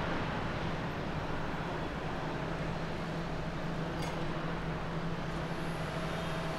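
Boeing 767 airliner's jet engines running at low power as it rolls along the runway, a steady rushing noise with a low hum. The noise eases in the first second and then holds steady, and a faint higher whine joins near the end.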